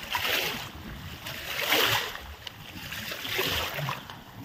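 Water sloshing and splashing right at the microphone as it bobs at the surface, in repeated surges about once a second.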